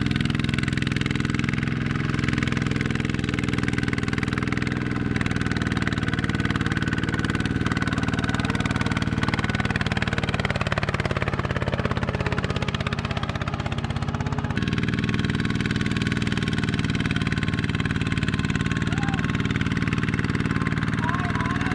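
Single-cylinder Kubota diesel engine of a two-wheel walking tractor running steadily while it hauls a trailer loaded with rice sacks through a muddy field. Its pitch sags for a few seconds about halfway through.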